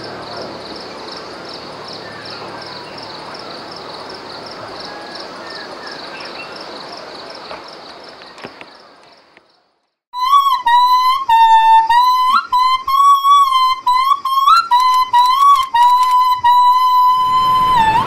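A high chirping, repeating about three times a second over a soft hiss, fades out about nine seconds in. After a moment of silence, a solo wind instrument plays a slow, gliding melody that is louder than the chirping.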